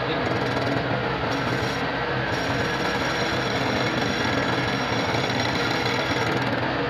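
Lathe running steadily with continuous scraping of metal as a motorcycle clutch housing is worked on, over a constant motor hum.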